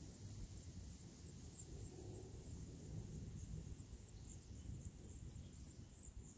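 Insects chirping in a steady quick rhythm, high-pitched, about four or five chirps a second, over a low rumble.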